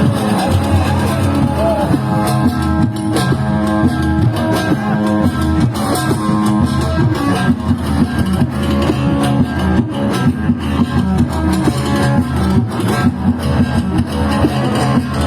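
Loud amplified live band music, an instrumental passage: plucked string instruments carrying the melody over bass guitar and drums with a steady beat.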